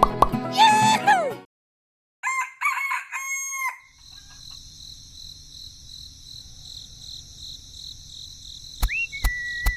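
A rooster crowing in pitched, falling calls, after banjo-like music cuts off a second in. It is followed by a faint, steady high chirring of insects.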